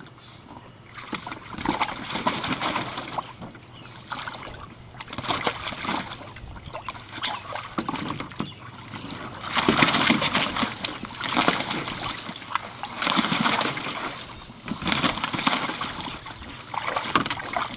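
Water splashing and sloshing in a plastic kiddie pool as an Australian cattle dog thrashes through it, playing with a boat bumper. The splashing comes in uneven bursts and is heaviest in the second half.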